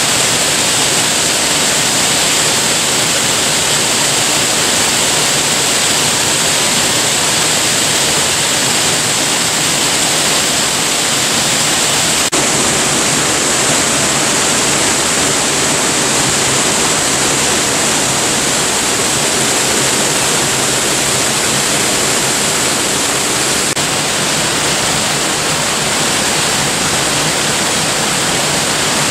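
Waterfall pouring steadily: a loud, constant rush of falling water with no break.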